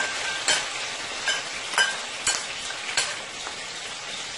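Chopped onion sizzling in hot oil in a stainless steel pot as seasoned chicken pieces are added, with about five sharp clinks of a spoon knocking against the bowl as the chicken is scraped in during the first three seconds.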